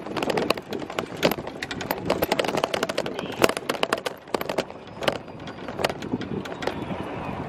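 A golf cart in motion, rattling and knocking with many sharp clicks as it rolls over uneven ground, over a steady rushing noise.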